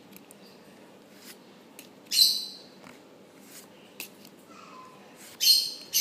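Pokémon trading cards being slid past one another as a held stack is flipped through card by card. There are two short, sharp swishes, about two seconds in and again at about five and a half seconds.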